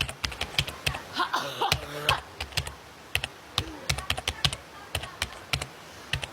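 Rapid, irregular clicking like keys being typed, with a short breathy vocal sound between about one and two seconds in.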